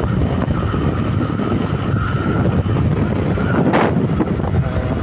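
Wind buffeting the microphone on a moving motorcycle, over the steady rumble of its engine and the road. There is a short burst of hiss about four seconds in.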